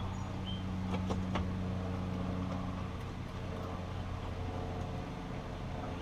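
A steady low machine hum, with two sharp clicks about a second in.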